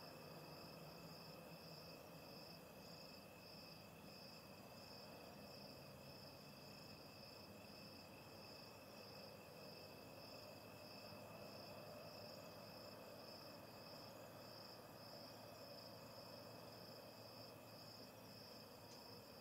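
Crickets chirping faintly: an even, repeating chirp about twice a second over a steady high-pitched tone.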